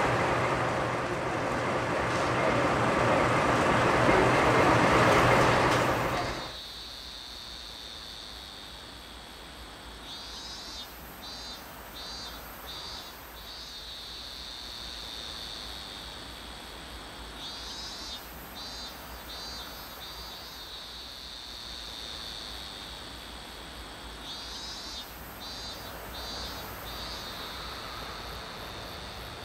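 For the first six seconds, a diesel locomotive idles steadily under the general noise of a crowd at a station. The sound then cuts off suddenly to insects chirping in a field: a steady high buzz with a pulsing trill that breaks in every few seconds.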